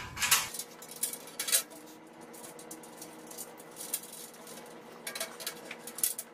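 Metal clinks and rattles from a sheet-steel bandsaw leg stand and its hardware being handled during assembly. There are a few sharp clatters at the start, another about a second and a half in, and a cluster near the end.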